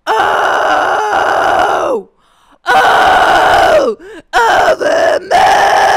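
A woman's extreme-metal scream into a microphone: a hybrid of false-cord and fry technique with a bright tone, a narrowed throat and a little air. It comes in several held phrases of one to two seconds, each dropping in pitch as it ends.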